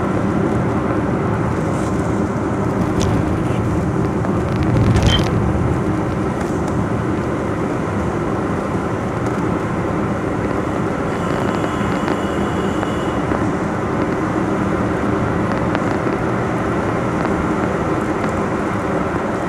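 Steady rumble of a moving road vehicle, its engine and tyre noise heard from on board, with a brief louder knock about five seconds in.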